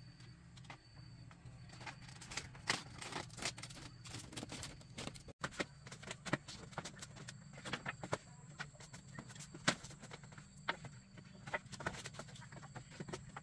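Irregular hollow knocks and clatter of bamboo poles being handled and set down on a split-bamboo floor, several knocks a second at times. A low steady hum sits underneath.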